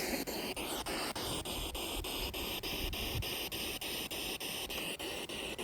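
Ghost-hunting spirit box sweeping through radio channels: a steady hiss of static, chopped by rapid, evenly spaced clicks as it jumps from station to station.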